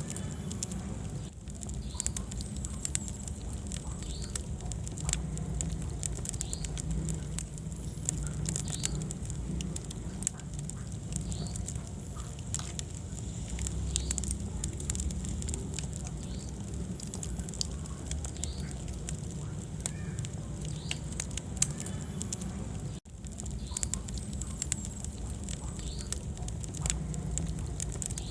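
Wood fire in a fireplace burning with a steady low rumble and frequent sharp crackles and pops, with a momentary dropout about two-thirds of the way through.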